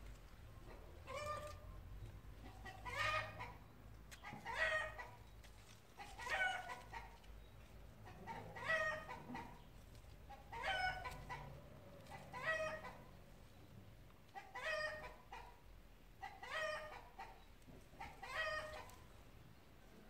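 An animal's short, high-pitched cry repeated about ten times, one every two seconds or so.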